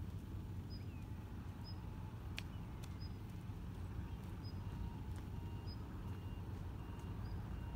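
Steady low outdoor rumble, with faint short high chirps about once a second.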